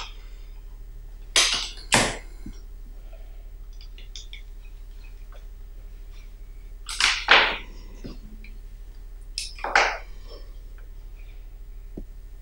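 A man's short, noisy breath sounds, such as snorts or huffs, coming as three pairs of sharp bursts: one pair a little after the start, one about seven seconds in and one near the end. They sound over a steady electrical hum.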